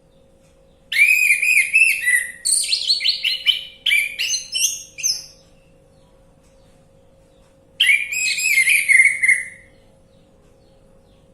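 Orange-headed thrush singing: two bouts of rich, varied whistled phrases, one of about four seconds and a shorter one of about two seconds, with a pause between.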